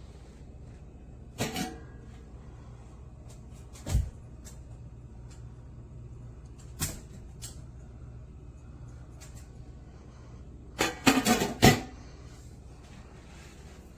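A few separate knocks and clacks, then a quick cluster of louder clattering knocks about eleven seconds in, over a steady low hum.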